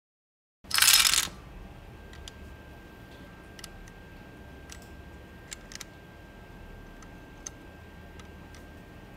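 A handful of plastic LEGO Technic beams clattering down onto a LEGO frame about half a second in, the loudest sound. Then scattered light plastic clicks and taps as the beams are moved and set into place one by one.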